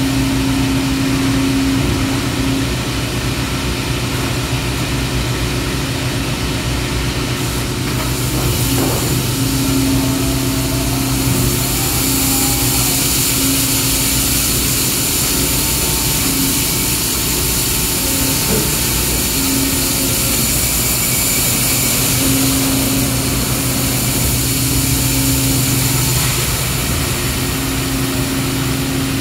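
Steady machine hum from a large Husky plastic injection molding machine running, with a constant pump tone. A high hiss comes in about twelve seconds in and fades again near the end.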